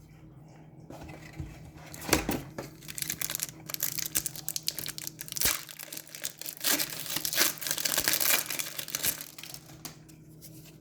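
Trading-card pack wrapper being crinkled and torn open while the cards are handled: dense crackling from about a second in until near the end.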